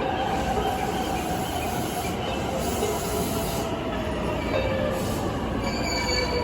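JR East 255 series electric train running slowly into an underground platform: a steady rumble of the cars with thin, high squealing from the wheels and brakes as it slows to a stop.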